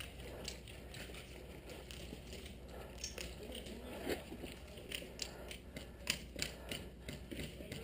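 Quiet, scattered sharp clicks and ticks over a low background hiss, coming more often in the second half.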